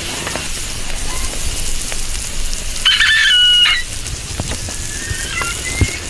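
A rooster crows once, just under a second long, about three seconds in. Underneath is a steady hiss with scattered small crackles, from a wood fire sizzling under a stone slab of grilling clams.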